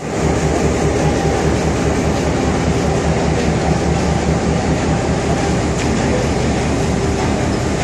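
Steam-hauled train with a steady, loud rumble.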